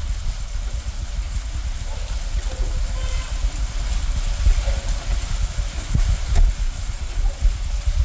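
Rain falling on a shallow sheet of water running over a road, heard as an even hiss, under a steady low rumble.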